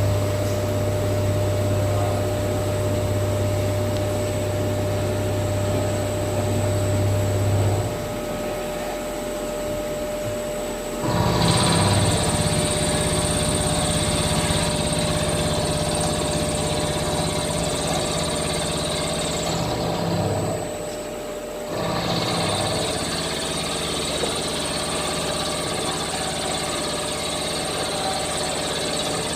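CNC vertical machining centre milling aluminium. A steady low machine hum gives way, about a third of the way in, to a high whine with cutting noise. The whine drops out for a couple of seconds and then resumes.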